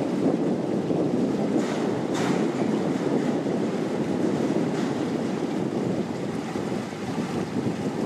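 Steady wind rumble on the microphone over the rush of river water, with a few faint hissing gusts.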